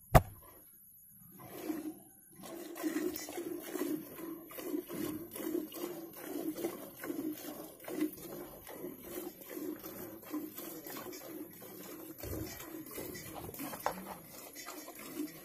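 A cow milked by hand: squirts of milk hitting the milk in a steel pot in a steady rhythm, about two a second. A single sharp knock comes at the very start.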